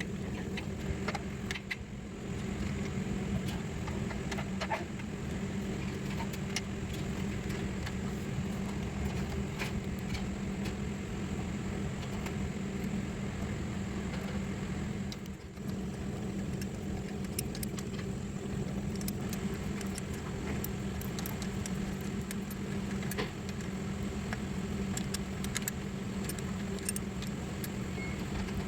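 Intermittent metallic clicks and clinks of hand tools and fittings over a steady low machine hum.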